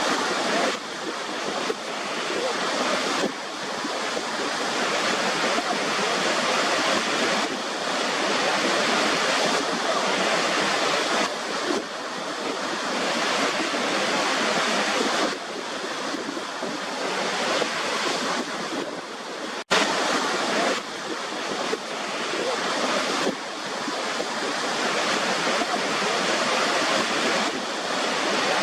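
Waterfall water rushing in a steady, full hiss that slowly swells and eases, cutting out for an instant about twenty seconds in.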